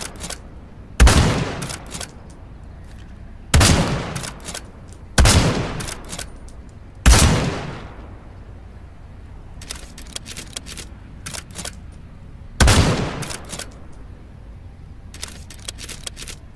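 .308 rifle firing five single shots at irregular intervals, each followed by a short echoing tail. Fainter sharp clicks fall between the later shots.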